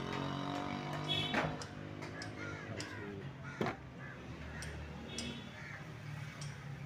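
Two sharp clicks from handling a plastic sprayer pump and its wiring, about a second and a half and three and a half seconds in, over a steady low hum.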